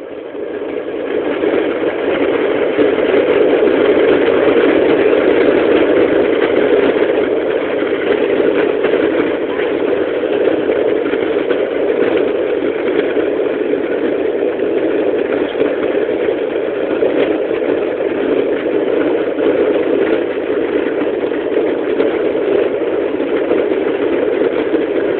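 Boeing 737-900's CFM56-7B turbofan engines spooling up to takeoff thrust, heard from inside the cabin: the noise swells over the first three seconds, then holds as a loud, steady rush through the takeoff roll.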